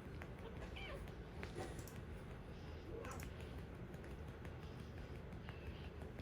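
Kitten giving a few faint, short, high-pitched mews, about a second in, around three seconds in and near the end, with small clicks and a low steady hum underneath.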